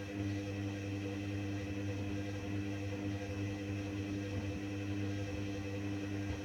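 Hoover Dynamic washing machine in its main wash, its drum motor running with a steady, unchanging hum.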